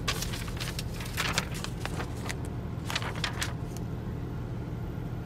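Semi-truck engine idling with a steady low hum. Over it come a scatter of light clicks and rustles from handling, which stop about four seconds in.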